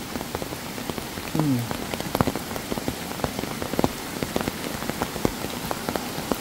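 Heavy rain with many close raindrops ticking sharply, over the steady rush of a swollen river running high after the storm. About a second and a half in, a short low sound that falls in pitch, like a brief voice.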